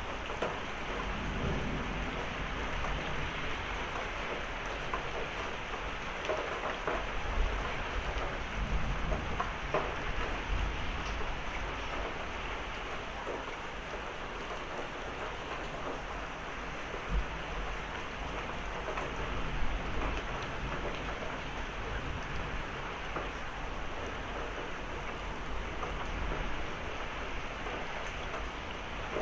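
Heavy thunderstorm rain pouring steadily, with low thunder rumbling through the middle and a few sharp knocks.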